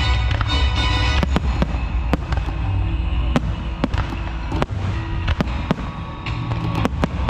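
Aerial fireworks going off in a quick, irregular string of sharp bangs and crackles, over music with a heavy, steady bass.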